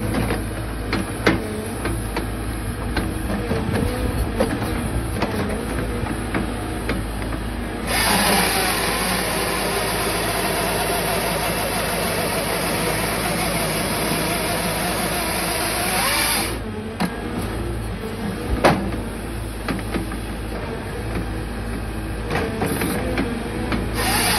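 CAT 311F excavator's diesel engine running steadily under hydraulic load. About a third of the way in, the chain-saw bar of a Ryan's Equipment 2059 grapple saw cuts through a tree trunk for roughly eight seconds, a loud, even rasping noise over the engine. A few sharp knocks of wood and the grapple are heard along the way.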